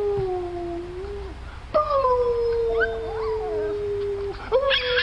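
A dog howling in long drawn-out notes, each sliding slowly down in pitch. There are three howls with short breaks between them, and the longest lasts about two and a half seconds.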